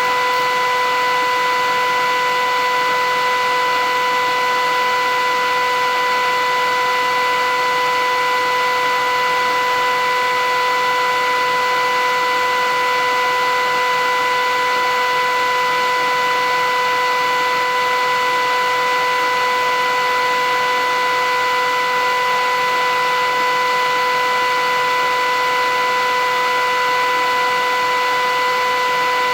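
Philips 8000 series vacuum cleaner running steadily: an even rush of air with a constant high whine.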